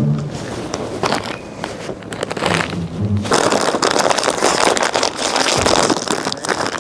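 Potato chip bag crinkling loudly as it is squeezed and rubbed in the hands. Scattered crackles for the first few seconds, then from about three seconds in a dense, continuous crackling.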